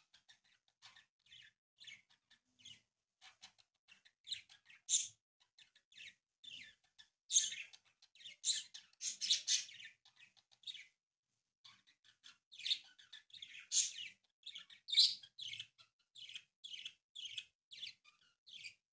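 A sheet of origami paper rustling and crinkling as hands fold it and press down creases: irregular short, dry scratches and rustles, thickest a little before halfway through and again about two-thirds of the way in.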